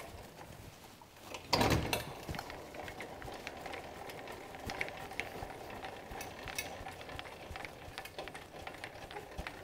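Trailer tongue jack being hand-cranked down, its gearing clicking steadily as it lowers the trailer coupler onto the hitch ball and shifts the tongue weight onto the truck. A louder clunk comes about a second and a half in.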